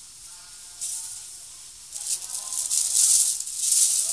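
Thin plastic carrier bag rustling and crinkling as hands handle it. It gets louder from about two seconds in.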